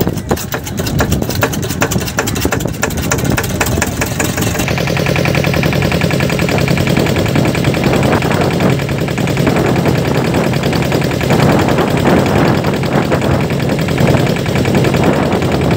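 Boat engine running, a rapid even knocking at first that settles into a steadier, lower engine note about five seconds in.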